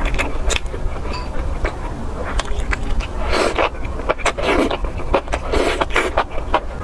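Close-miked chewing of mala xiang guo: irregular crunching and wet mouth clicks, with louder crunchy bites in the second half.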